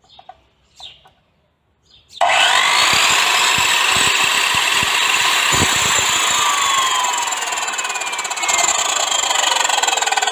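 A 2200 W, 9.25-inch circular saw starts suddenly about two seconds in and runs loud and steady through wood. Its whine falls in pitch in the second half.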